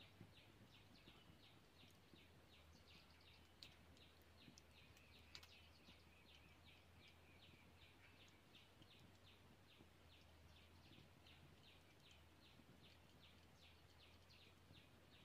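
Near silence, with faint, even high-pitched chirping from a small animal, about four chirps a second.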